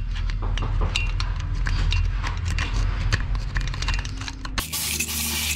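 Quick light clicks and clinks of small metal engine parts being handled on a workbench, over a low hum. About four and a half seconds in the sound changes abruptly to a steady hiss with a low steady tone.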